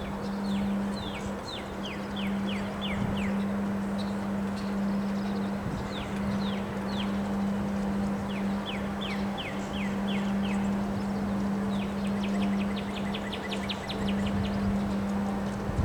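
Wind blowing in gusts, with a steady low hum underneath. A songbird sings several phrases of quick, descending chirps, the last about twelve seconds in a fast trill.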